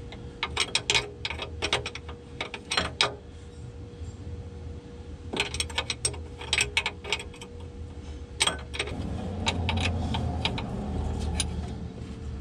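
A wrench clicking and clinking against the steel pilot-line hose fittings on an excavator's hydraulic valve bank as the fittings are worked loose, in short runs of quick metallic clicks. A low rumble comes in about nine seconds in and lasts a couple of seconds.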